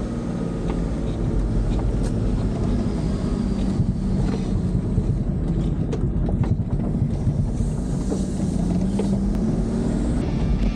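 Four-wheel-drive vehicle driving on a gravel forest track, heard from inside the cab: steady engine drone and tyre rumble, with a few sharp knocks from bumps and stones.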